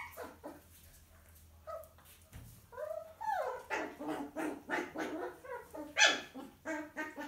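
Miniature poodle mother and her six-week-old puppy in a scuffle: a rapid run of short, high yelps and barks, starting about three seconds in, as the mother disciplines the puppy.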